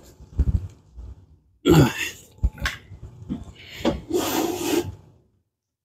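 A heavy solid-wood cabinet frame being turned over by hand: a few low knocks of wood on the floor, a short grunt of effort about two seconds in, and a scraping rub near the end.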